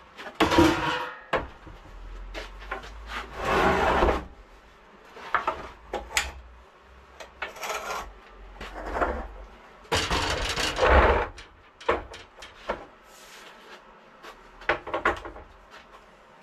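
A wooden cabinet stand being rolled and shoved about on its casters, with irregular knocks, scrapes and rubbing and a low rolling rumble in two longer stretches.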